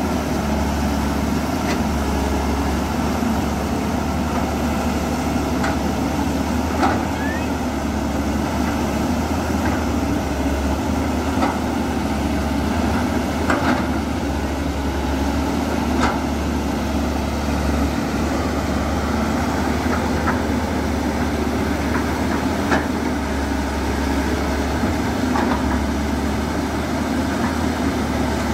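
Caterpillar E200B excavator's diesel engine running steadily, with a few sharp knocks a few seconds apart.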